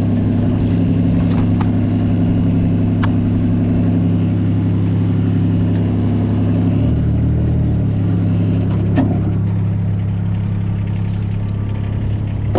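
Compact loader's engine running steadily, its note shifting about seven seconds in, with a few light clicks.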